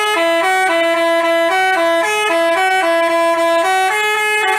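Basuri telolet bus horn playing a fast tune of short held notes that step up and down several times a second.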